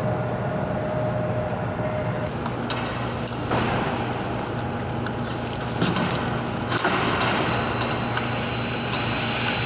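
Steady mechanical drone of hangar machinery with a low hum, overlaid by scattered metallic clicks and knocks of tools on aircraft parts; a thin whine runs through the first two seconds or so.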